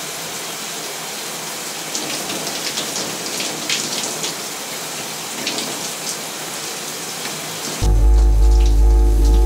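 Steady hiss of running shower water, with scattered faint crackles from about two seconds in. Near the end a much louder low drone with several steady tones cuts in suddenly.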